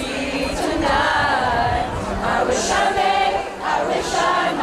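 A choir singing, with music behind it.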